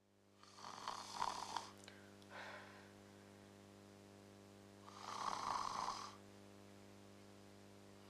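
A person snoring: two loud rasping snores about four seconds apart, with a weaker breath after the first, over a steady low electrical hum.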